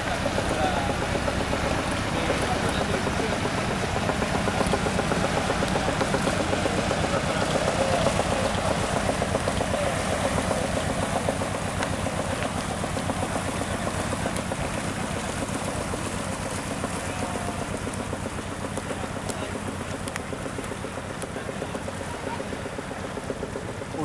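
Cessna 172's single piston engine running at low power on a landing approach. It is loudest through the first half as the plane comes past, then slowly fades as it touches down and rolls away.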